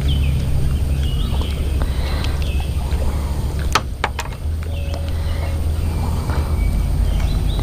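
Wind buffeting the microphone in a steady low rumble, with small birds chirping in short calls throughout and two sharp clicks about four seconds in.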